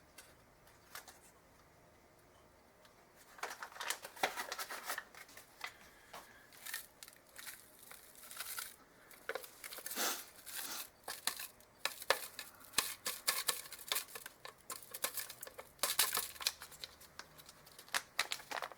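A seasoning packet being torn open and crinkled as it is handled, heard as a run of quick crackling rustles that starts a few seconds in and keeps on.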